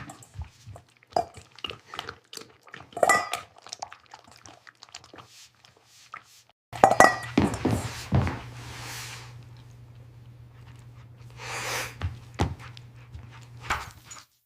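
Scattered knocks and clinks, as of a dish or bowl being handled, with a few brief swishes. A steady low hum comes in about halfway.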